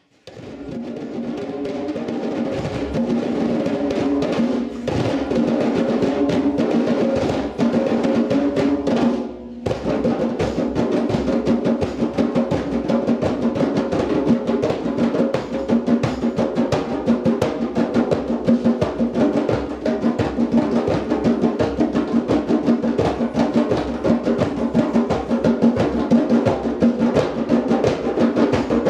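A djembe ensemble of six drummers on thirteen djembes playing a fast, dense rhythm together. It swells in over the first few seconds, breaks off briefly about nine and a half seconds in, then comes straight back in.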